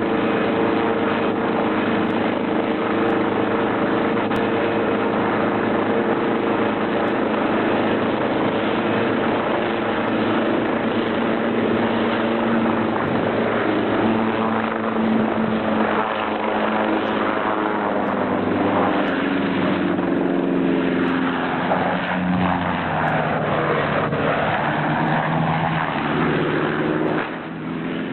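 Hughes 300 light helicopter's four-cylinder Lycoming piston engine and rotor running hard without a break. Its pitch holds steady at first, then wanders up and down in the second half.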